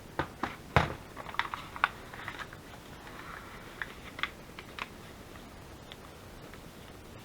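Coffee-dyed paper being trimmed and handled on a craft table: a quick run of small clicks and taps in the first couple of seconds, then a few scattered ticks.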